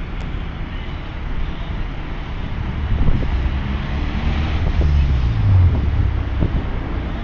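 City street traffic passing close by, with a vehicle's engine note dropping as it goes past about five seconds in. Wind rumbles on the microphone throughout.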